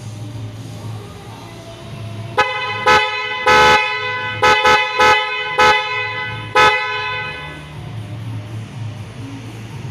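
Pair of Wilwood dual-tone snail horns on a Kawasaki ZX-25R sounding a string of about eight short, loud honks over about five seconds, starting a couple of seconds in. A steady low hum runs underneath.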